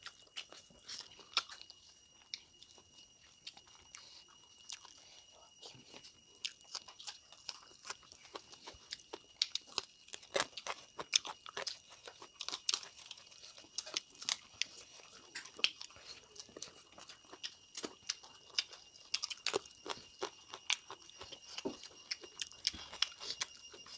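Close-miked chewing and crunching as two people eat smoked duck and other dishes by hand: irregular sharp crunches and wet mouth clicks, several a second at times. A faint steady high-pitched tone runs underneath.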